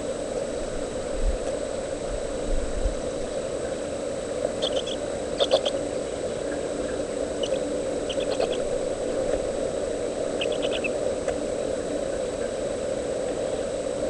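Great horned owlets giving short, high squeaky chitters in quick little clusters, about five times, over a steady low hum, with a couple of dull bumps from movement in the nest early on.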